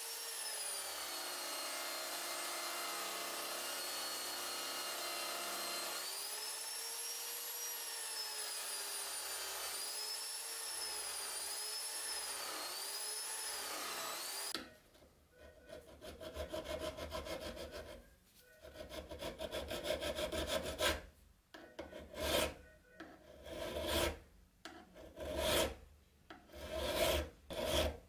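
A motor-driven abrasive wheel runs steadily while a steel knife blade is pressed against it, its whine dipping and recovering with the pressure. About fifteen seconds in it gives way to a hand file scraping across the knife's handle in slow strokes, roughly one a second.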